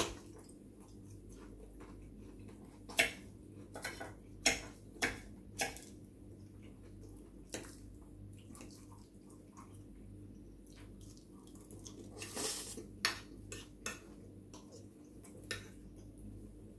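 Metal fork clinking and scraping against a plate while cutting ravioli, in scattered sharp clinks a second or more apart.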